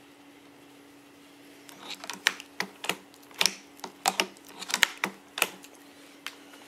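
A run of about a dozen sharp, irregular clicks and light knocks, made by handling a Mosin-Nagant bolt-action rifle. They start about two seconds in and stop shortly before the end, over a faint steady hum.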